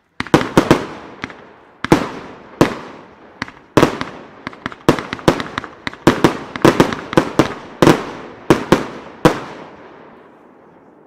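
El Gato Perlas Multicolor fireworks battery (cake) firing: a fast, irregular string of sharp bangs as shots launch and burst. It stops about nine seconds in, and the echo dies away.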